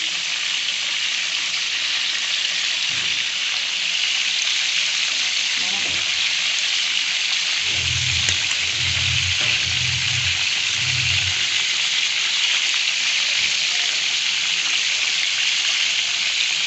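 Whole quail deep-frying in a pan of hot oil, a steady sizzle.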